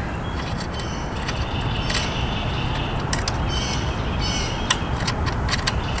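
Outdoor background: a steady low rumble with faint bird chirps, and a few small sharp clicks from hands working a screw and hardware on the e-bike's metal frame.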